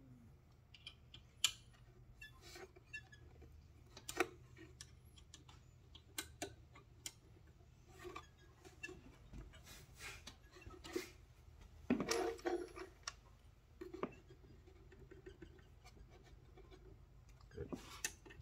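Scattered small metallic clicks and clinks of a hex key and roller drive chain as the traction motor mount is tightened to re-tension the chain, with a busier run of clinks about two-thirds of the way through.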